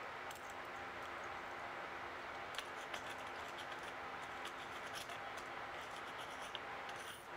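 Faint small clicks and scrapes of a threaded flange nut being spun by hand onto an angle grinder's spindle against the grinding wheel, over steady low room noise.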